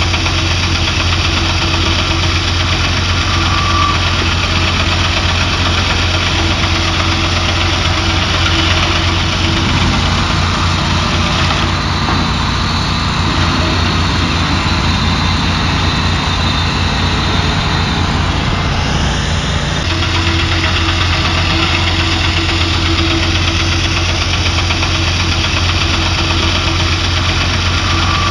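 Engine running steadily, its note shifting for several seconds midway.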